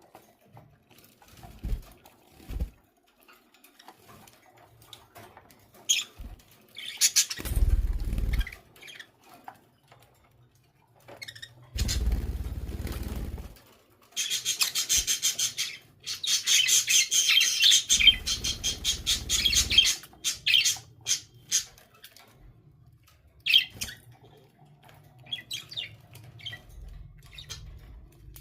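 Pet budgerigars chirping and chattering in short high calls, with a dense stretch of rapid chatter about halfway through. A few short bursts of wing flapping break in among the calls.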